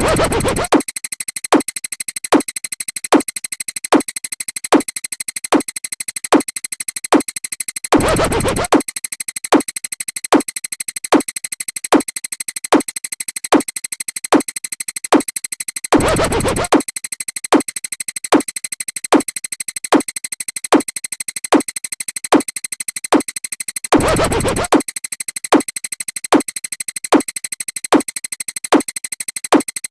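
Repeated sound effects: a hardstyle kick drum hitting about two and a half times a second, with a longer DJ baby-scratch burst every eight seconds, over steady high synth tones.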